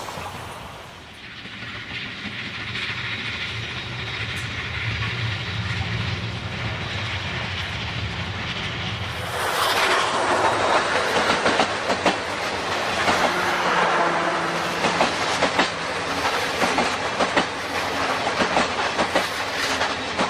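C57 1 steam locomotive and its train approaching, then passing close by about nine seconds in, where it gets much louder with rapid clicking of wheels over the rail joints and a steady hiss.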